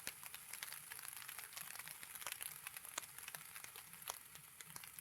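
Light drizzle: faint, irregular ticks of raindrops landing close to the microphone over a steady hiss.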